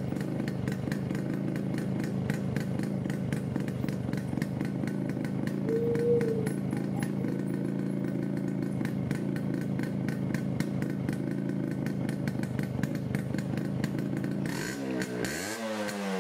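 Yamaha RX-Z's 135 cc two-stroke single-cylinder engine running steadily on its stock silencer. Near the end the pitch sweeps up and then back down.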